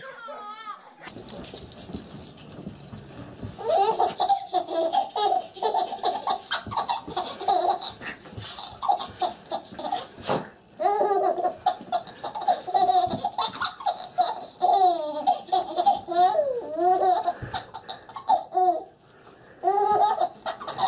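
A baby laughing hard in a long run of short, high-pitched bursts, starting about four seconds in.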